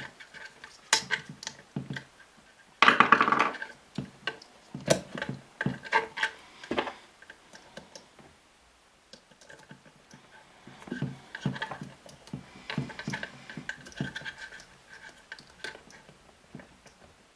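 AA batteries being pushed into a small plastic pull-out battery holder: irregular clicks, taps and scrapes, with a louder scraping rattle about three seconds in.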